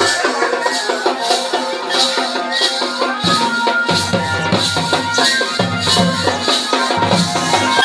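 Pahari folk music for a tandi song: a melody over a steady beat of about two strokes a second, with a shaker-like rattle. Deep bass notes come in about three seconds in.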